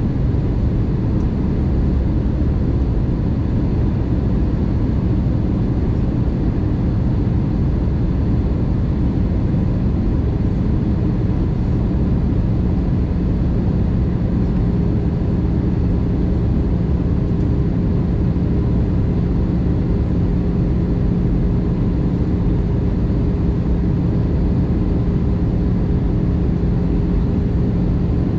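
Airbus A220 airliner cabin noise in flight: a steady rush of air and engine rumble from the Pratt & Whitney PW1500G geared turbofans. A low engine hum grows stronger and gains a second, higher tone about halfway through.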